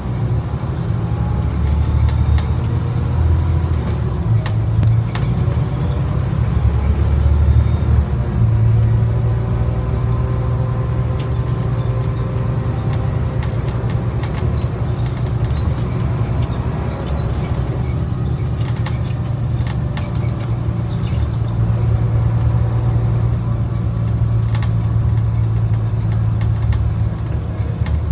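Scania OmniDekka double-decker bus heard from the upper deck while under way: a steady low engine drone that changes note as the bus pulls through its gears, with a faint whine rising and falling above it. Scattered short rattles and clicks come from the interior fittings.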